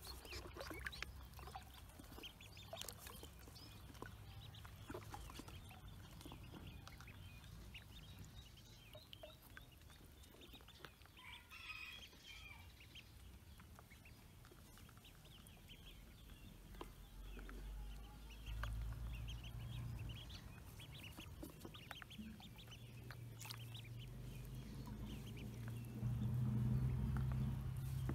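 Pekin ducklings peeping: a scattered chorus of short, high peeps. A low rumble comes in during the second half and is loudest near the end.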